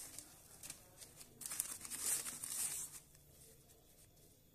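Plastic bag crinkling and rustling as a plastic scoop digs potting mix of burnt rice husk and compost out of it, loudest for a second or so about halfway through.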